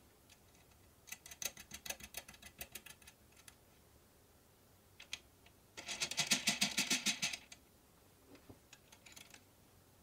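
Rapid small metallic clicking and rattling as a nut and an aluminium timing pulley are spun by hand down a threaded bolt. It comes in two bursts, one about a second in and a louder one around six seconds in, with a few single clicks between and after.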